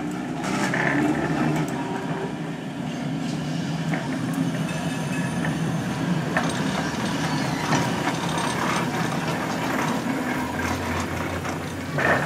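Sheffield Corporation Tramways No. 74, a double-deck electric tram, running along the rails: a steady hum and rumble from its motors and wheels, with scattered clicks and a faint high whine.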